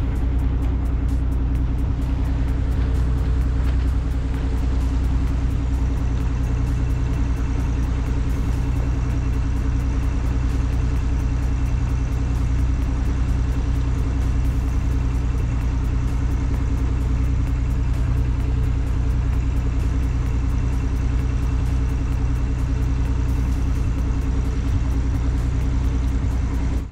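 Motor yacht's inboard diesel engine running steadily under way, a constant low drone.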